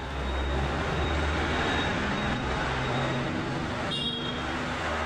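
Steady road-traffic noise with a low engine hum, and a brief high tone about four seconds in.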